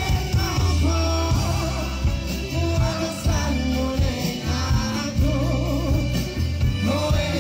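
Live band music with a strong bass line and singing voices over it.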